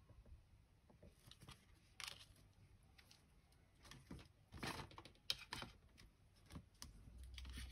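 Faint, scattered taps and light clicks of paper and small papercraft tools being handled on a desk.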